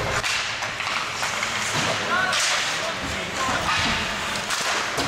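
Ice hockey play on a rink: sharp cracks of sticks on the puck and each other, skates scraping the ice, and shouting voices.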